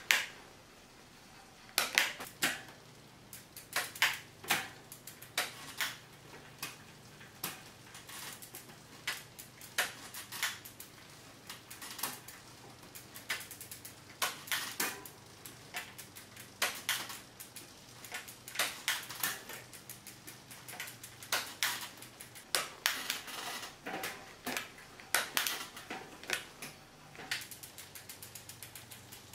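Bicycle gear shifting on a Salsa Fargo: the shift lever clicks and the chain clatters across the rear cassette cogs while the rear wheel spins, a run of sharp clicks every half second or so. A faint steady low hum comes in under the clicks about a third of the way in.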